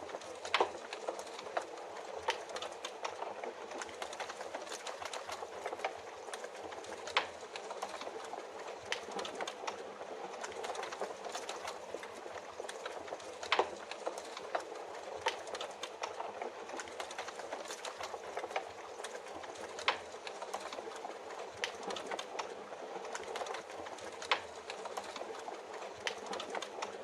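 Wood fire crackling, with constant small snaps and an occasional louder pop every several seconds, over a steady hiss of rain.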